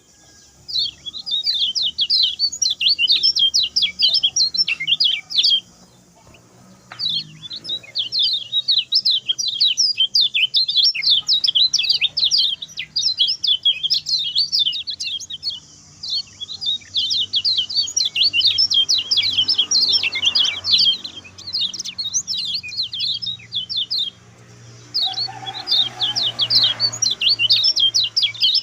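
Common iora singing a fast, chattering song of rapid high notes, in bouts of several seconds broken by short pauses.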